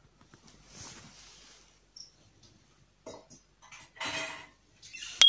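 A few faint rustles and clinks, then a sharp bell-like ding right at the end that rings on as a clear high tone: the chime of an animated subscribe-button overlay.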